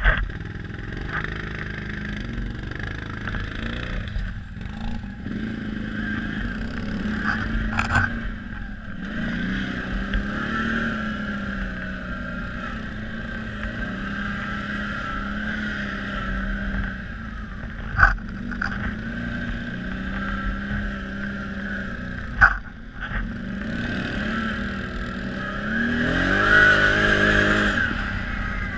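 Quad bike engine running under way, its revs rising and falling with the throttle over rough ground. Two sharp knocks come a few seconds apart in the second half, and the revs climb and grow louder near the end.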